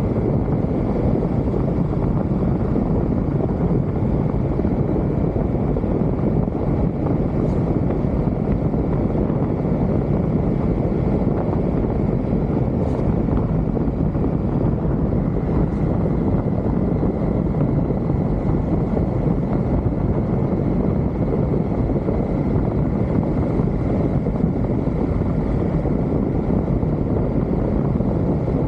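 Triumph Tiger motorcycle riding at a steady pace: the engine runs under a steady rush of wind on the microphone, with no change in speed.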